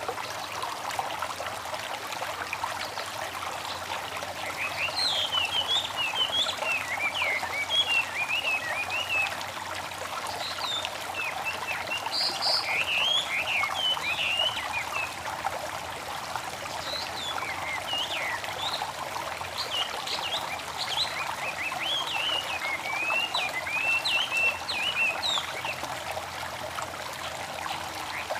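A babbling stream trickling steadily, with birds singing over it in quick high chirps and twittering phrases.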